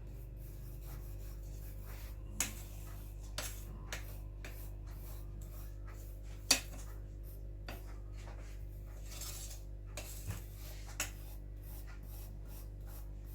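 A spoon pressing and smoothing a crushed-biscuit cheesecake base inside a round ring mould: a run of soft scraping rubs with occasional sharper taps, the loudest about six and a half seconds in.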